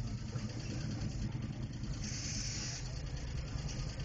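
Big-block V8 engine of a donk idling steadily, with a short hiss about two seconds in.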